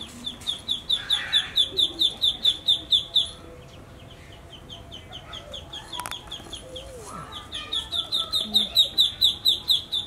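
Rapid series of short, high-pitched peeping calls, about five a second: a loud run at the start, fainter calls in the middle, and a second loud run near the end.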